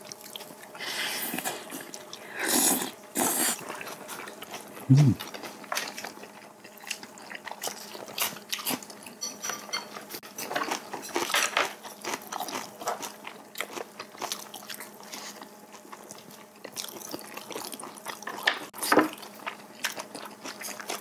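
Close-up eating sounds: kalguksu noodles slurped in two noisy drags in the first few seconds, then chewing, lip smacks and chopsticks clicking against bowls. A brief low hum about five seconds in.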